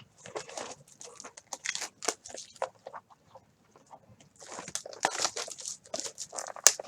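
Plastic wrapping being torn and crinkled off a sealed box of trading cards, as a run of short crackling bursts that get denser about halfway through.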